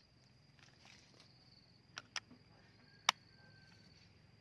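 Faint, steady, high-pitched insect trilling, with three sharp clicks about two, two and a quarter and three seconds in, the last the loudest.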